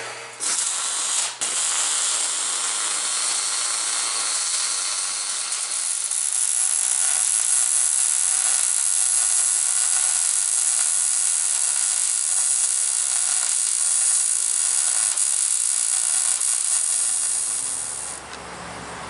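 Electric arc welding: the arc's steady crackling hiss while a tab is welded onto the steel bike-carrier hitch. It starts and stops twice in the first second and a half, then runs as one long bead and stops a second before the end.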